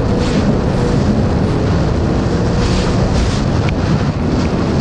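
Sea-Doo GTR jet ski running at full throttle, its engine partly buried under heavy wind noise on the microphone.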